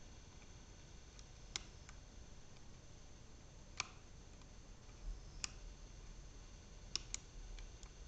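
Sharp metallic clicks of a dimple pick working the pins inside a brass Mauer Elit 2 dimple-lock cylinder during picking: about five clicks at irregular intervals, two close together near the end.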